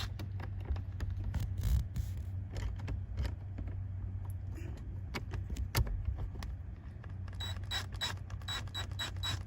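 Cordless drill with a T30 Torx bit backing out the airbag retaining screws under a steering wheel: clicks and scrapes of the bit in the screw, then in the last two seconds a rapid even clicking, about five a second.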